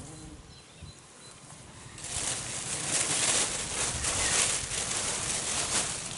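Plastic carrier bag rustling and crinkling as it is handled and rummaged through, starting about two seconds in.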